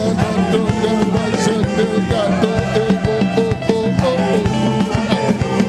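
Upbeat gospel praise music: a band playing a steady driving beat with a repeating melodic riff over a steady bass line, between sung "hallelujah" phrases.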